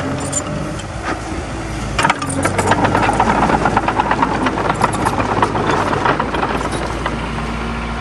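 Komatsu D20A crawler bulldozer's diesel engine running steadily. About two seconds in, a rapid metallic clatter of its steel tracks joins in as the dozer moves under load.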